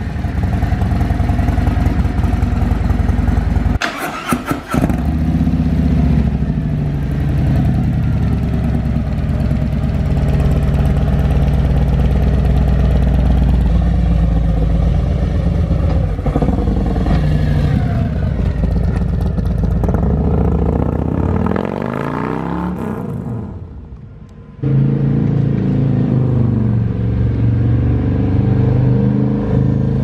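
Harley-Davidson Street Glide ST's Milwaukee-Eight 117 V-twin, stage 1 with a D&D 2-into-1 exhaust, running and revved a few times, its pitch rising and falling. The sound drops out briefly about four seconds in and again near twenty-four seconds.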